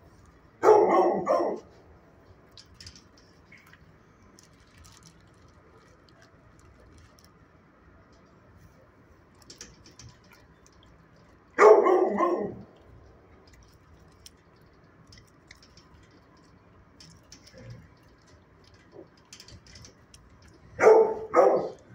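A dog barking in three short bouts: about a second in, near the middle, and a quick double bark near the end.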